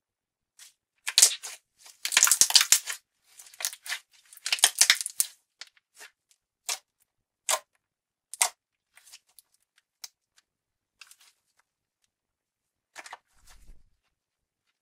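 Slime Japan's Starry Night clear slime being squished and pressed by hands: a flurry of wet crackling and sticky popping for the first few seconds, then single scattered pops and clicks.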